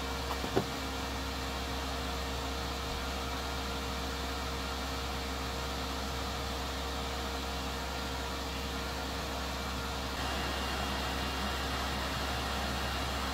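Hot air rework station blowing a steady hiss onto a circuit board, heating the solder. There is a single sharp click about half a second in, and the air noise steps up slightly about ten seconds in.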